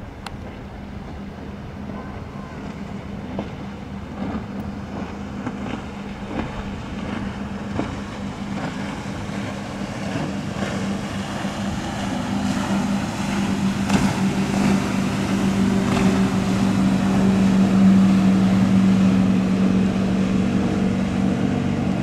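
Engine drone of a passing fishing boat: a steady low hum that grows louder as the boat comes closer, loudest a few seconds before the end.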